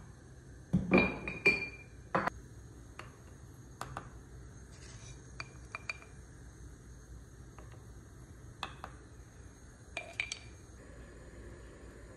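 A spoon clinking against an enamel coffee pot: a quick group of ringing clinks about a second in, lighter taps through the middle, and another few ringing clinks near ten seconds.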